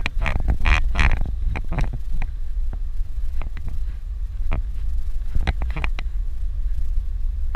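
Suzuki Jimny driving on a rough dirt road: a steady low rumble of engine and road, with frequent sharp knocks and rattles, thickest in the first second and a half and again around five and a half seconds in.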